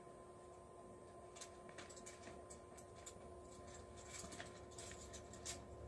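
Near silence: faint steady room hum with a few soft, scattered clicks of small items being handled.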